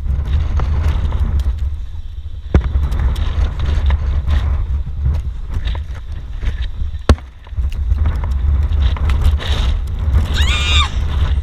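Strong wind buffeting the microphone as a loud, gusty low rumble, with two sharp knocks and a short wavering high-pitched sound near the end.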